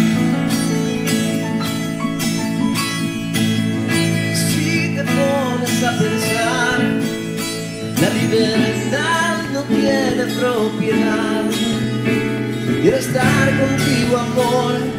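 Instrumental passage of a bambuco arrangement: acoustic guitars and other plucked strings play a steady rhythmic accompaniment. A wavering lead melody comes in about five seconds in.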